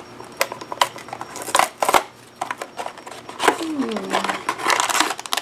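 Small paperboard blind box being pulled open by hand: a run of sharp clicks and snaps as the tucked flaps come free, then rustling and crinkling of the packaging inside. A short vocal sound that falls in pitch comes about three and a half seconds in.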